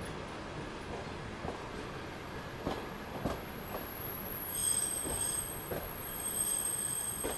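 Railway wagons rolling past with occasional wheel knocks. About halfway through the wheels start a high, steady squeal of several tones together, and the sound grows louder.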